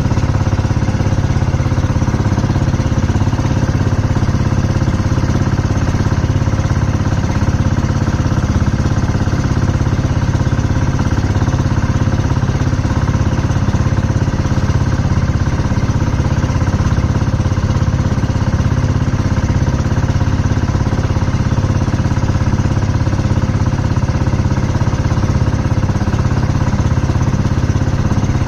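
Outrigger fishing boat's engine running steadily while the boat is under way, loud and even throughout with no change in pitch.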